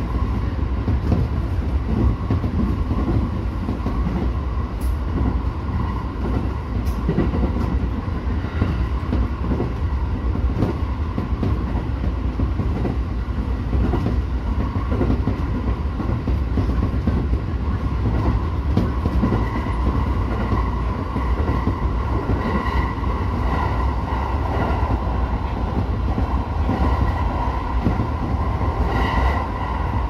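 JR E231-series electric commuter train running at speed, heard from inside the driver's cab: a steady rumble of wheels on rail with a few clicks over rail joints. A higher whine comes in over the rumble from about two-thirds of the way through.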